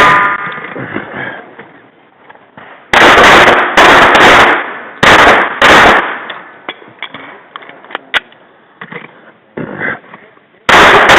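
Pistol shots in an action pistol course of fire: four shots over about three seconds, then a pause and one more shot near the end, each with a short echo.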